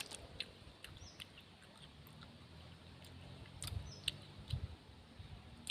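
Faint eating sounds: scattered small clicks and taps, with chewing growing heavier in the second half.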